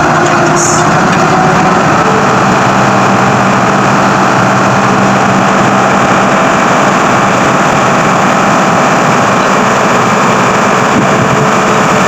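New Holland 8070 diesel combine harvester running at work, its engine and threshing machinery making a loud, steady noise as it drives into standing wheat and cuts.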